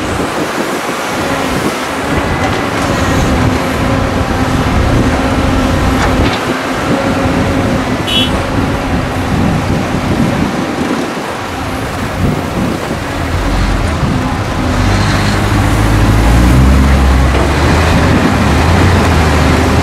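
Diesel engines of Caterpillar crawler excavators and ten-wheel dump trucks running together at a dig. About two-thirds of the way through, a deep engine rumble grows louder as a loaded dump truck moves off.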